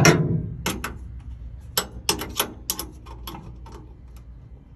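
A knock, then a run of sharp, irregular metal clicks and clinks from hand tools and fittings being worked around a truck's suspension air bag.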